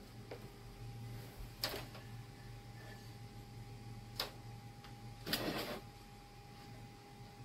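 Handling noises on a workbench as a corded soldering iron and its cord are picked up and moved: a sharp click, another click, then a short rattling knock, over a steady low hum.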